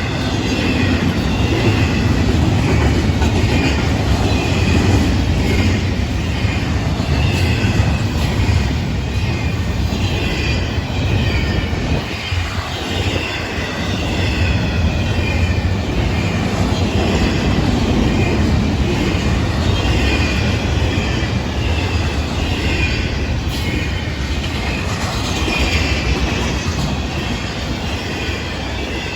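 Freight train cars (autoracks and intermodal) rolling past at speed: a steady rumble of wheels on rail, with a faint wavering squeal from the wheels.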